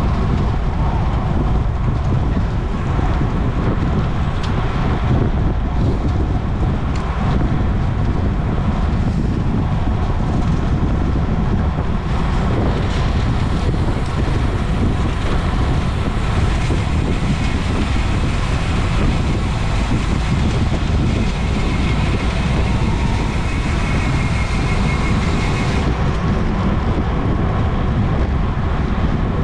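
Wind buffeting the microphone of a camera on a bicycle ridden at racing speed: a steady, heavy low rumble of wind noise.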